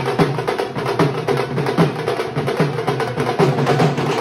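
Music with a steady drum beat, about two to three hits a second.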